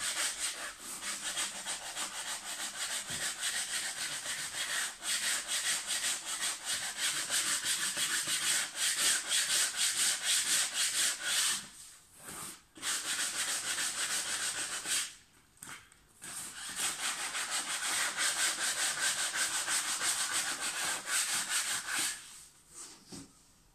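Coarse 60-grit sandpaper rubbed by hand, in quick back-and-forth strokes, along the curved edge of a thin board template to round it and take out flat spots. It pauses briefly twice and stops shortly before the end.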